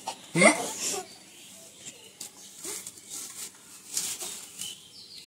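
A girl's short burst of laughter about half a second in, then quiet with only faint, scattered small sounds.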